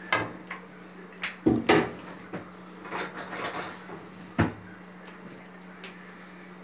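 Kitchen drawer opened and shut with cutlery rattling as another spoon is fetched: a handful of sharp knocks and clatters, the loudest about a second and a half in and another sharp knock past the four-second mark, over a faint steady hum.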